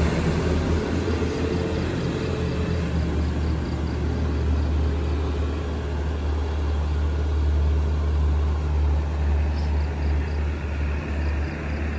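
Low, steady engine rumble of a heavily loaded sugarcane truck pulling away up the road.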